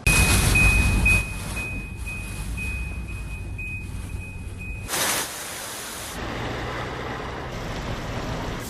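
Storm wind rumbling loudly over the microphone while a high electronic alarm beeps rapidly and evenly. After about five seconds it cuts to a quieter, steady rush of wind.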